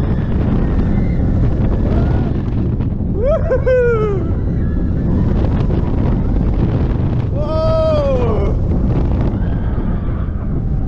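Vekoma roller coaster train running at speed: wind rushing over the microphone and a steady rumble from the train on the track. Riders let out two long yells that fall in pitch, about three and a half and seven and a half seconds in.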